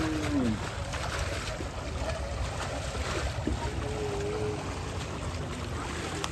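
Water sloshing and splashing as people and cattle wade and are washed in a river, over a steady low rumble.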